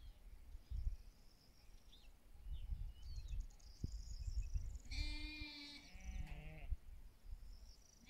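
A sheep bleats once, about five seconds in: a single baa of about a second and a half that drops lower toward its end.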